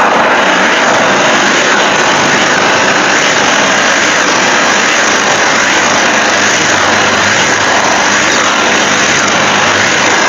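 Loud, steady harsh noise with no clear pitch, starting abruptly, part of a mock Emergency Alert System alarm.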